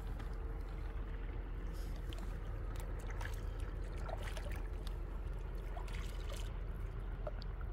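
Hands dabbling and scooping in shallow water at a stony shore: small splashes, drips and trickles, most between about one and six seconds in, over a steady low rumble.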